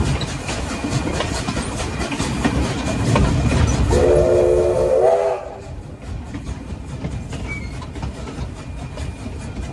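A train hauled by Victorian Railways K-class steam locomotive K163, heard from the open balcony right behind the tender: wheels clatter over rail joints over a running rumble. About four seconds in, the locomotive's steam whistle blows once for about a second and a half, rising slightly at its end. Just after the whistle the running sound drops sharply to a quieter level.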